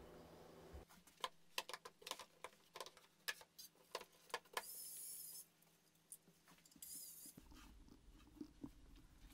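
Wooden articulating laptop arm of plywood being swung and adjusted: a run of light, irregular clicks and knocks from its joints and tray, with two brief scraping or sliding sounds around the middle.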